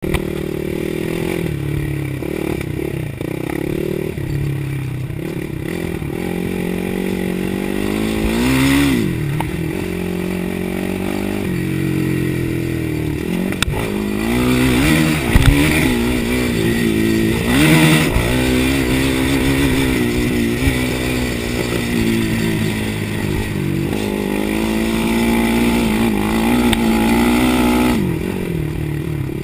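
Suzuki LT-R450 sport quad's single-cylinder four-stroke engine under way on a dirt track, revving up and dropping back again and again as the throttle is worked, with its loudest pulls about a third and a half of the way through.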